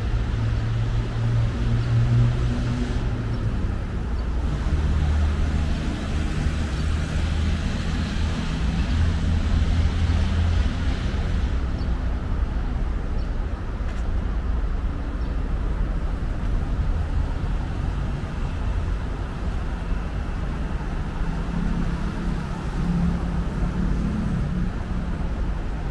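Steady low rumble of road traffic, with engine hums that swell and fade.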